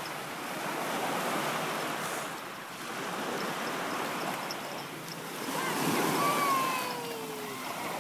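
Small sea waves breaking and washing up the sand at the water's edge: a steady surf hiss that swells about six seconds in.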